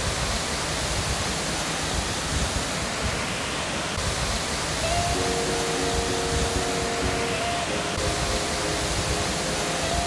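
Steady roar of falling water from Mackenzie Falls. A few held musical notes come in about halfway.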